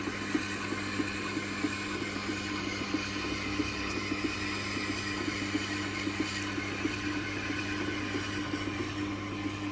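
Tormek T8 sharpening machine running with a steady motor hum, with a soft hiss from a knife blade being honed on its leather honing wheel.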